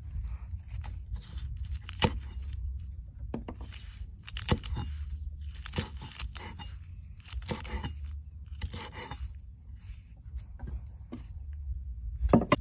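Cleaver chopping through crisp leafy green stems onto a wooden chopping board in irregular strokes, about one a second, the loudest near the end, over a steady low rumble.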